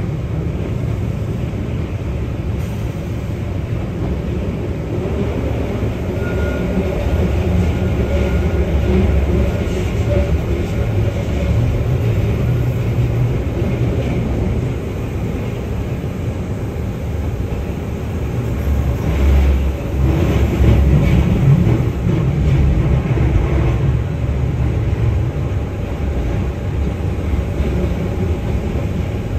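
Keihan 600 series train running along the track: a steady rumble of wheels on rail and running gear, growing louder for a few seconds about two-thirds of the way through.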